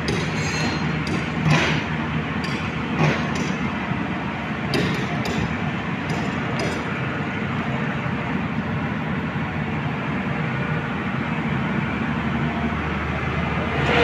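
Hyundai crawler excavator's diesel engine running steadily as it lifts a trailer concrete pump slung from its bucket, with four short metallic clinks and knocks in the first half.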